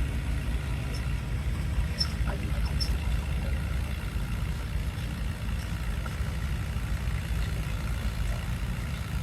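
Low, steady engine rumble of a 1938 Allis-Chalmers unstyled WC tractor's four-cylinder engine running at an even pace.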